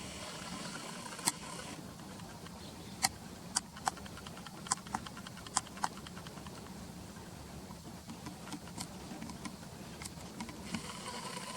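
Barn swallows giving short, sharp calls, scattered in a quick loose series through the middle few seconds, over a steady low background hum.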